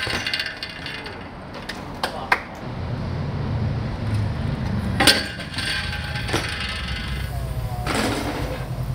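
A BMX bike knocking and clattering on tiled paving: a few sharp metallic clacks and knocks, the loudest about five seconds in with a short ring after it. A low rumble comes in about three seconds in and carries on underneath.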